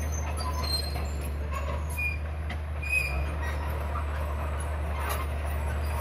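Komatsu D31P crawler bulldozer working, its diesel engine running with a steady low drone as it pushes rock and soil. Brief high squeaks from the steel tracks come through now and then.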